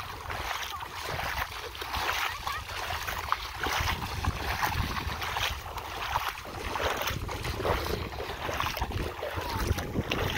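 Wind rumbling on the microphone over the wash of shallow water, with irregular splashing of feet wading through it.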